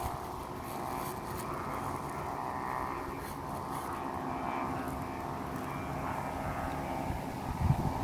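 A kite's hummer bow (giăng) droning steadily in strong wind: a buzzing hum with many overtones. Wind buffets the microphone near the end.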